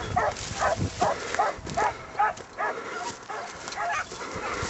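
Hunting hounds giving tongue on a hare's trail: a steady run of short, repeated yelping barks, about two or three a second, from hounds chasing a hare they have just started.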